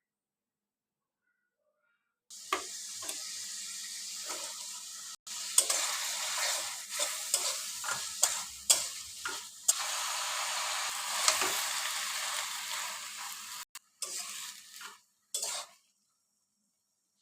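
Greens and shrimp sizzling in a hot pan while a spatula stirs them, knocking and scraping against the pan. The sizzle starts suddenly about two seconds in and cuts off abruptly several times before stopping near the end.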